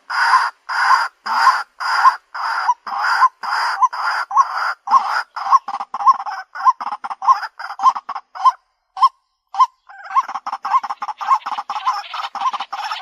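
White-breasted waterhen calling, the same short note repeated over and over, about two a second at first and quickening to about three a second. Near nine seconds there is a short break, then the calls come faster and more crowded.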